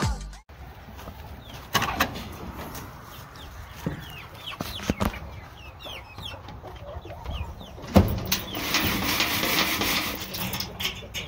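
Domestic chickens clucking in a coop, with a few sharp knocks; the loudest knock comes about eight seconds in.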